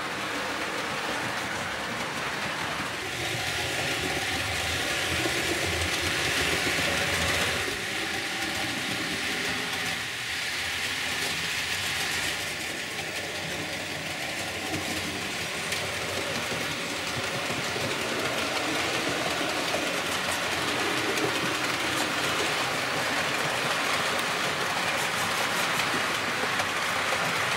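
Model train running past on a model railway layout: wheels rolling over the track, with a steady motor whine from the model electric locomotive from about three seconds in, fading by the middle.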